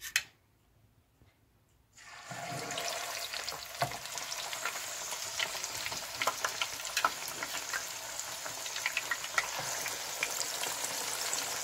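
Minced-meat chapli kebab patty shallow-frying in hot oil in a pan: a steady sizzle with many small crackling pops that starts suddenly about two seconds in, as the patty goes into the oil.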